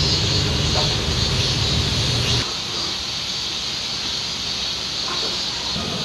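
Steady high-pitched drone of cicadas over a low rumble of passing road traffic; the rumble cuts off suddenly about two and a half seconds in, leaving the cicadas.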